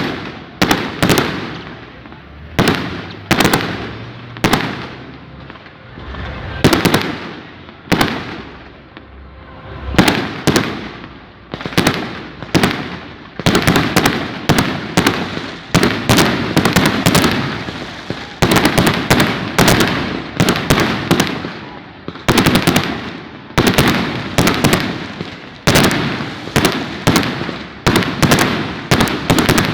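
Firecrackers going off in a long irregular series of sharp bangs, often several in quick succession, with short gaps between clusters.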